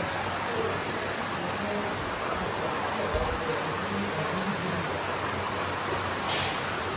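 Steady rushing of running water from the koi tanks' water flow.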